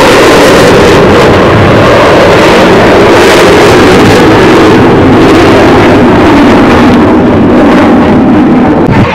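Fighter jet's engine noise during a low display pass, loud enough to overload the recording, with a dense rumble that slowly falls in pitch.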